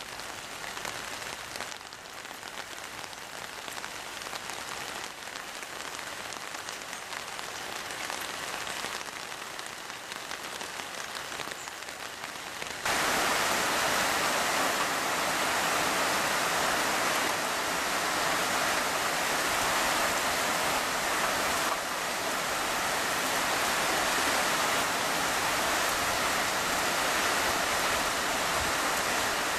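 Heavy rain on a corrugated metal roof and gutter, a steady hiss. About 13 seconds in it becomes suddenly louder.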